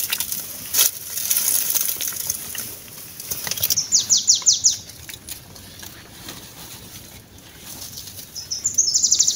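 Pumpkin vines and leaves rustling as they are handled and picked, with a bird's rapid trilled call twice, once about four seconds in and again, longer, near the end.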